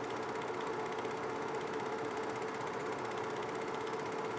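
Film projector running: a steady mechanical whirr with a constant hum and rapid, even clatter from the film-advance mechanism.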